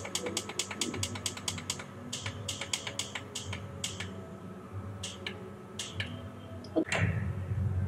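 Plastic push-button on top of a digital alarm clock being clicked repeatedly to step the alarm minutes: rapid clicks, several a second, for about two seconds, then slower single clicks. There is a louder knock about seven seconds in.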